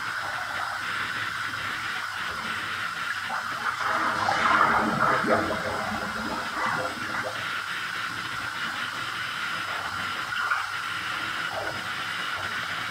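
Water running from a bathtub tap into a filling tub, with sloshing and splashing as a person moves around in the water, loudest about four to five seconds in.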